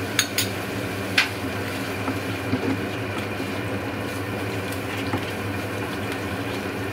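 A spoon knocks sharply against the bowl and pan three times in the first second and a half as cashew paste is scraped into the cooking masala. A steady low hum runs underneath.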